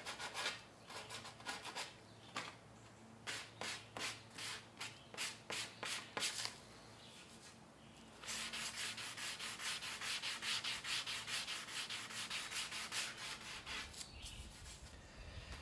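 Hand sanding the epoxy-coated tip of a wooden Greenland paddle with 120-grit sandpaper. It starts as separate rasping strokes, about two a second, stops briefly about six seconds in, then turns to quick, steady rubbing that eases off near the end.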